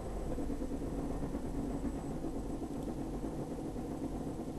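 Steady low hum of room background noise, unchanging throughout, with no distinct events.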